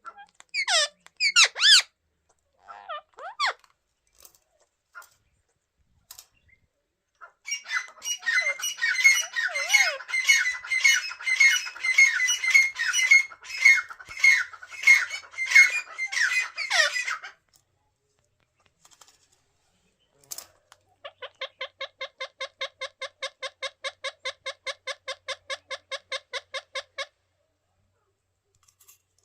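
Indian ringneck parakeets calling: a few sharp squawks, then about ten seconds of rapid, harsh, repeated screeching calls. After a pause comes a steady run of short, evenly spaced notes, about four a second.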